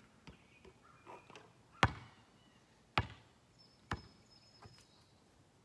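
Basketball bouncing on an asphalt driveway: three sharp bounces, each quicker and quieter than the last, then a faint fourth as the ball settles.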